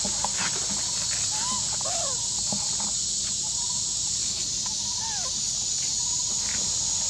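A steady, high insect drone with short arched calls that rise and fall, repeating every second or two. Light clicks and rustles of macaques moving over dry leaf litter.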